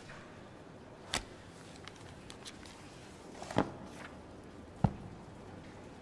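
Sparse water drips in a dark-ambient soundscape suggesting a sewer: three single drops, the loudest near the end, over a faint steady hiss.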